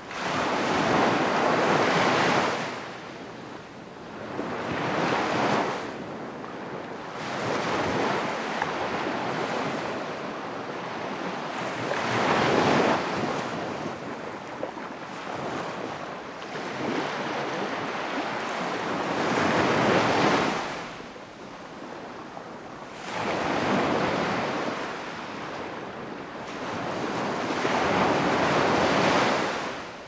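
Ocean surf breaking on a sandy beach: waves rush in and fall back in slow surges, one every three to four seconds.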